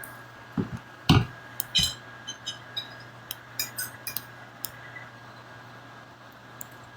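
A few soft knocks in the first two seconds, then scattered small clicks and clinks, over a faint steady hum.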